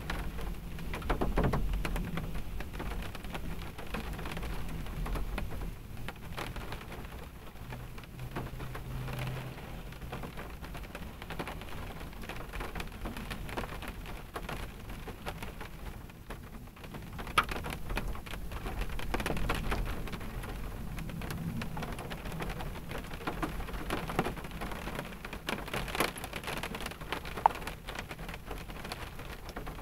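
Rain falling on a car, heard from inside the cabin: a steady patter with single sharper drop ticks now and then. A low rumble swells a few times underneath.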